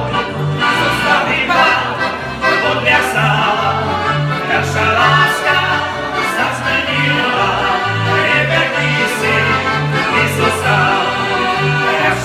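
Two accordions playing a lively folk tune over a steady, bouncing bass pattern, with two men singing along.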